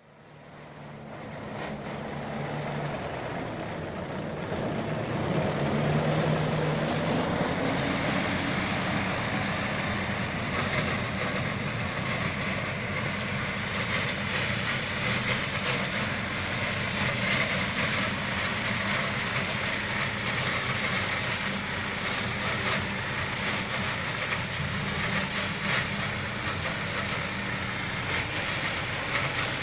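A tractor engine and its PTO-driven sugarcane harvester attachment running steadily while cutting and gathering standing cane. The sound fades in over the first couple of seconds.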